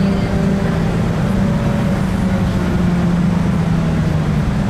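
Class 165 Networker Turbo diesel multiple unit under way, heard from inside the carriage: its underfloor Perkins diesel engine drones steadily over the rumble of wheels on rail. The engine note sinks a little in pitch in the second half.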